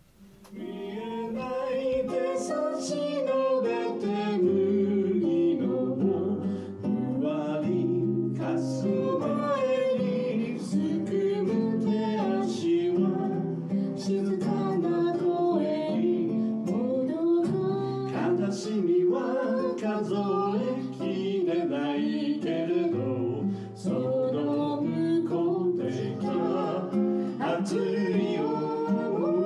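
Acoustic guitar with a voice singing a song, performed live through small PA speakers. The music starts about half a second in after a moment of near silence.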